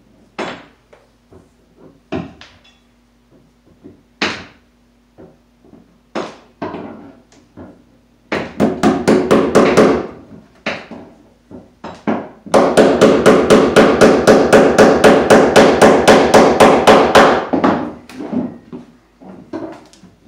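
Hammer striking into wooden ceiling joists while fastening electrical cable. Scattered single taps, then two runs of rapid hammering at about six blows a second, the second and longer lasting about five seconds.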